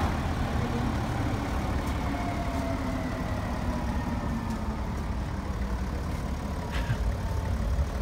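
2016 BMW 7 Series engine idling steadily as the driverless car creeps out of its parking space under Remote Control Parking. A faint whine slowly falls in pitch over the engine rumble.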